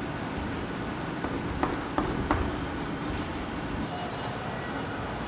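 Steady room hiss with a few light, sharp taps of chalk against a blackboard between about one and two and a half seconds in.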